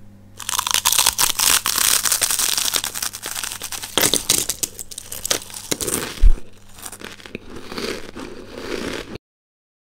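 Dense crinkling, crackling noise full of sharp clicks, with one loud knock about six seconds in; it cuts off abruptly near the end.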